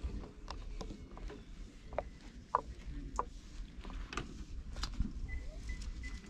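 Rustling and scattered soft clicks of a hand stroking and rubbing a cat's fur, over a low steady rumble.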